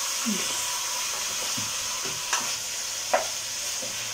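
Chicken pieces and grated tomato with tomato paste sizzling steadily as they sauté in a metal pot, stirred with a spoon that clicks against the pot twice, a little after two and three seconds in.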